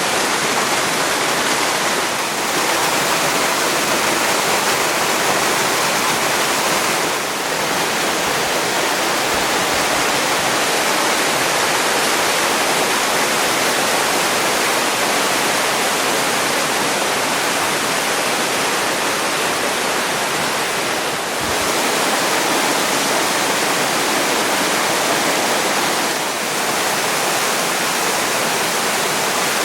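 Waterfall: water falling and rushing as a loud, steady noise, dipping briefly about four times.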